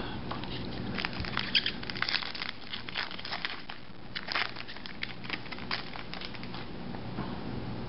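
Plastic trading-card pack wrapper being torn open and crinkled by hand: a run of short, irregular crackles that thins out near the end.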